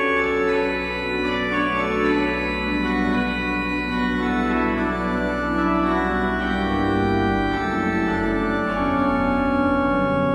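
Pipe organ playing slow sustained chords, with a deep pedal bass that comes in at the start and changes note about two-thirds of the way through.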